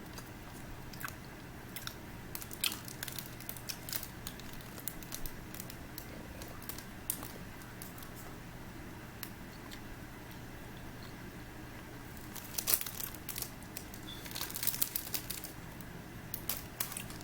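Plastic snack wrapper being handled and crinkled in scattered sharp crackles, busiest about thirteen and fifteen seconds in.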